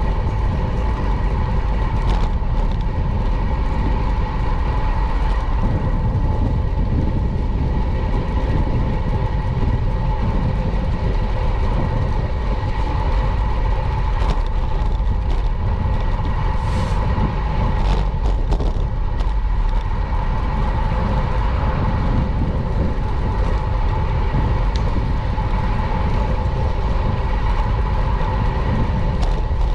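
Steady wind and road rumble from a camera on a moving bicycle in city traffic, with a constant hum and a few brief clicks.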